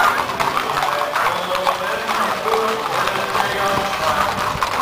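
Hooves of several ridden Tennessee Walking Horses clip-clopping on an asphalt street as a group passes, a quick, uneven patter of many hoof strikes. Voices of onlookers murmur underneath.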